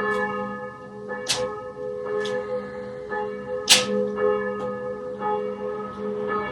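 Church bells ringing: about half a dozen irregular clapper strikes, the loudest a bit under four seconds in, over a steady hum of tones left ringing from earlier strikes.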